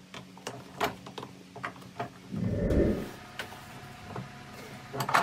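Steel tire irons clinking and knocking against the wheel rim and a bench-mounted manual tire changer as a small garden-tractor tire is worked on its rim. A louder rough rub of the tire lasts under a second a little over two seconds in, and a sharp knock comes near the end.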